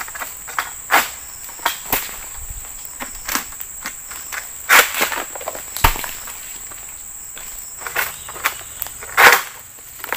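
Short rustles and sharp cracks as a long-pole oil-palm harvesting sickle (egrek) is worked among the fronds and bunches of a palm crown, loudest about five seconds in and again near the end. A steady, high-pitched insect drone runs underneath.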